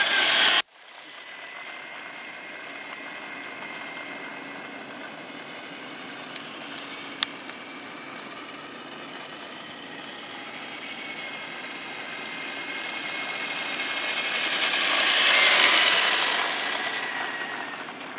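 A 1/14 Tamiya Grand Hauler RC semi truck driving over a gritty, gravelly surface: its tyres crunch on grit under a faint electric motor whine. The sound grows louder to a peak about three-quarters of the way through, then fades as the truck passes. A brief louder sound cuts off abruptly in the first second, and there are a couple of light clicks around six and seven seconds in.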